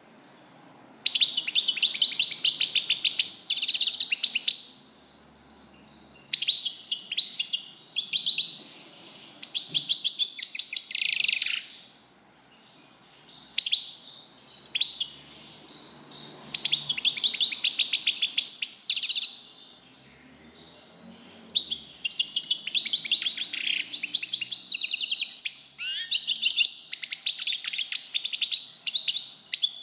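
European goldfinch singing: phrases of rapid, high twittering trills broken by short pauses, the last phrase running longest.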